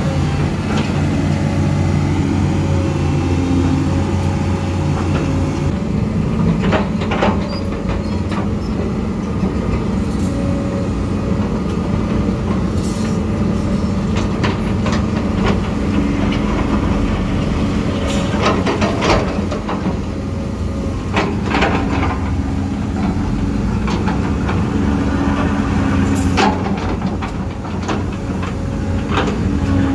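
Huina 1550 RC excavator's electric motors and gearboxes running with a steady whining drone whose pitch shifts slightly as it works, broken by a few short knocks and clicks.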